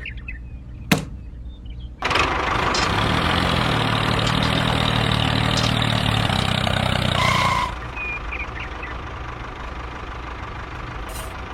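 An engine starts suddenly about two seconds in and runs loudly and steadily, then drops to a quieter, steady idle about eight seconds in. A single short knock comes about a second in.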